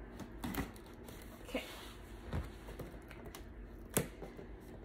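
Scissors cutting the tape on a cardboard box, then fingers working the box open: a few scattered clicks and scrapes, with a sharper click near the end.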